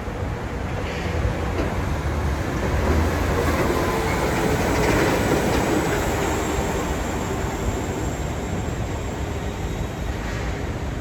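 Miami Metromover people-mover car running along its guideway, heard from inside the car: a steady rolling rumble with a faint whine, growing a little louder in the middle.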